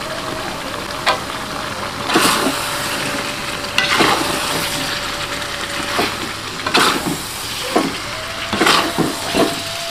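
Pak choy and chicken in chilli paste sizzling in a metal wok while a spatula stirs them, scraping against the pan in irregular strokes over a steady frying hiss.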